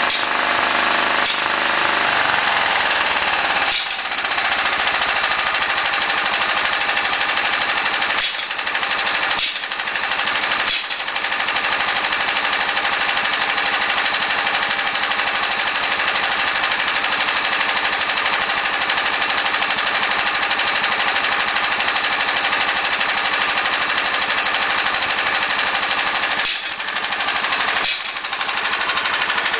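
Riding-mower engine, swapped into a John Deere 160 from a 170, idling unevenly. Its speed sags about two seconds in, and it stumbles with brief misses several times. The owner says it is hard to fire and shows blow-by at idle, then seems to load up.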